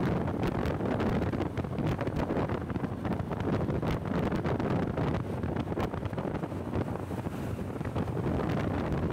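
Wind buffeting the microphone of a rider on the move: a steady low rumble with scattered crackles, over road and traffic noise.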